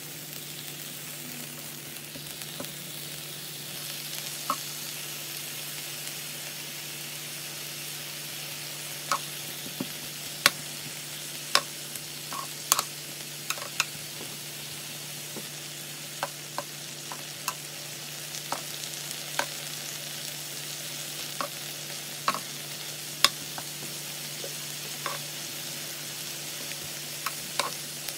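Pork slices sizzling steadily on a ridged electric grill pan. Sharp short clicks and pops are scattered through, coming more often from about a third of the way in.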